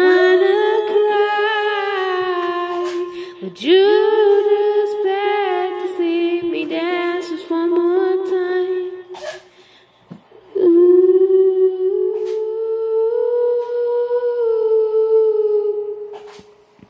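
A girl's voice through a handheld karaoke microphone, singing wordless long held notes in three phrases with a slight waver in pitch; the last phrase rises a little near the end.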